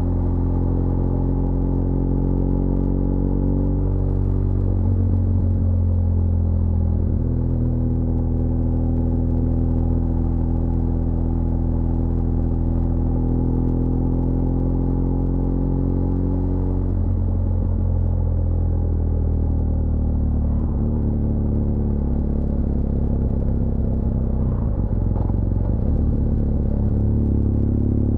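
BMW R1200GS LC Adventure's boxer-twin engine running while the motorcycle is ridden downhill. Its pitch drifts slowly and shifts several times as the revs change, notably about 5 s in and again past the middle.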